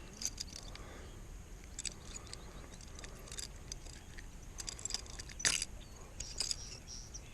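Faint scattered clicks and rattles, with one brief louder rustle about five and a half seconds in, from a hooked bass being reeled in and landed.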